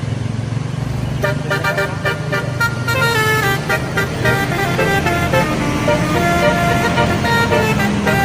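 Bus telolet horn playing a quick melody of changing notes, starting about a second in over the steady rumble of the bus engine, growing louder for the first few seconds.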